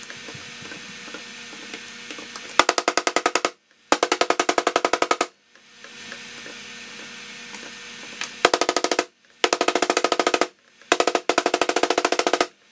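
A clay-filled extruder barrel for a ceramic 3D printer is pounded down again and again to pack the clay and drive out air bubbles. It comes as five quick runs of knocks of about a second each, at roughly ten knocks a second.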